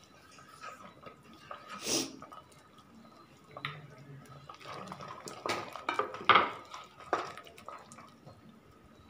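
A ladle stirring boiling, watery masala in an aluminium pressure cooker: liquid sloshing and dripping, with sharp knocks of the ladle against the pot, one about two seconds in and a cluster between about five and seven seconds in.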